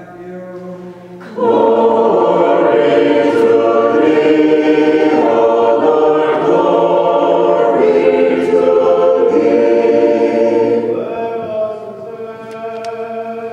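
Unaccompanied Orthodox church choir singing a liturgical hymn. It comes in loudly about a second in after softer chanting, and falls back to quieter singing near the end.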